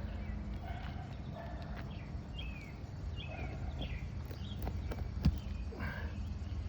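Scattered clicks and knocks of a tool working nails out of roof shingles, the loudest a sharp knock about five seconds in. A few short descending chirps sound between about two and four and a half seconds in.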